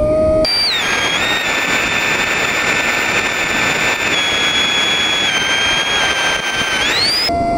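RC plane's electric motor and propeller whining over a heavy rush of wind, heard from the aircraft itself. The whine drops as the sound changes abruptly about half a second in, holds steady, then climbs near the end before cutting off suddenly.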